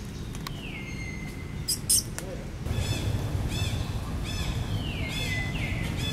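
Wild birds calling: a whistled note that falls in pitch, heard twice, and from about three seconds in a run of quick arched chirps, over a low steady rumble. A brief sharp click just before two seconds in is the loudest sound.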